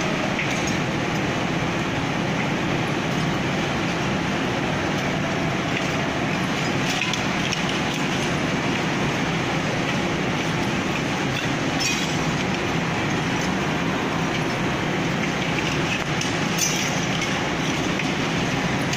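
Steady mechanical rumble of machinery in a glass-cutting plant, with a few short sharp cracks, four times, as scored glass sheets are snapped apart on the cutting table.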